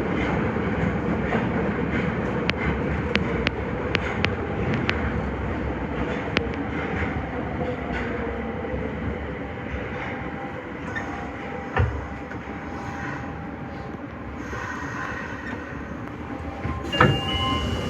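Nagoya subway Higashiyama Line 5050-series train running through the tunnel, heard from inside the front car: a steady rumble with a run of sharp wheel clicks a few seconds in, growing gradually quieter. Whining tones come in about two-thirds of the way through, a single thump follows shortly after, and stronger steady tones start near the end.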